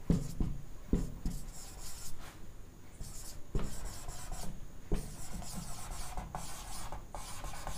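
Marker pen squeaking and rubbing across a whiteboard as words are written, in a run of short strokes with a few soft knocks between them.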